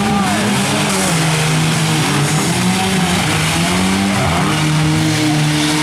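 Demolition derby cars' engines revving, their pitch rising and falling as the cars push and shove against each other.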